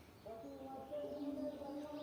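Birds calling, a few low steady tones held over faint background hiss.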